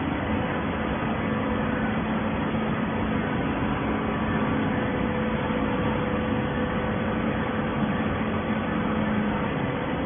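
Steady machine hum of a horizontal baler's hydraulic power unit running, a continuous low drone over even mechanical noise.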